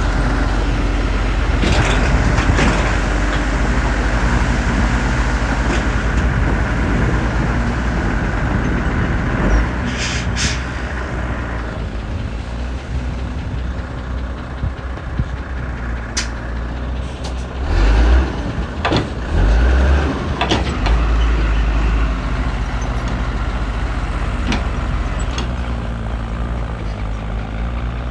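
Heavy diesel earthmoving machinery running steadily, with a couple of short hisses about ten seconds in and several loud low thuds a little past the middle.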